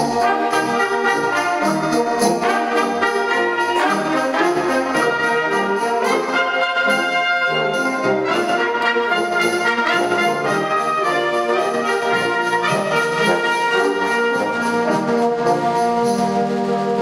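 Concert wind band playing a brass-led passage, with trumpets to the fore.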